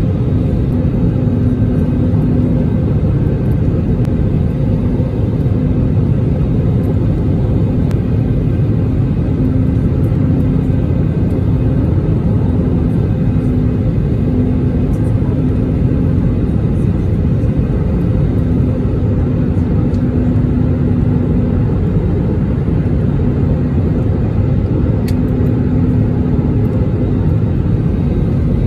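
Steady loud rumble of an Airbus airliner heard from inside the cabin during landing. A steady low hum runs through it and drops out briefly several times.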